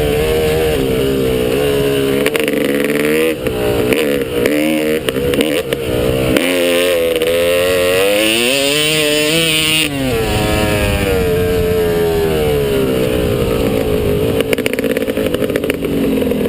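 Motocross bike engine revving up and down under throttle as it is ridden, its pitch rising and falling again and again. The longest rise is a climb from about six seconds in, which drops off sharply near the ten-second mark.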